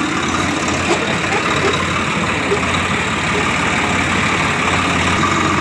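Swaraj 855 FE tractor's three-cylinder diesel engine running steadily as the tractor drives along, heard from the driver's seat.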